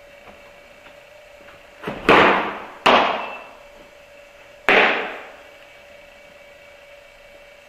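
A softball smacking into leather gloves: three sharp pops, each followed by a short echo off the walls of the indoor practice room. The first comes about two seconds in, right after the pitch is thrown, with a second pop close behind it and a third about two and a half seconds later.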